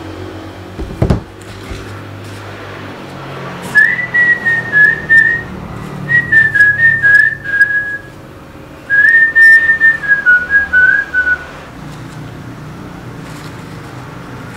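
A person whistling a tune in three short phrases, each stepping down in pitch, starting about four seconds in. A low thump comes about a second in.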